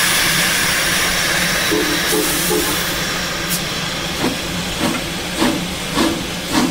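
Disneyland Railroad steam locomotive pulling out of the station: a loud steady hiss of steam, then from about four seconds in the first exhaust chuffs, a little under two a second.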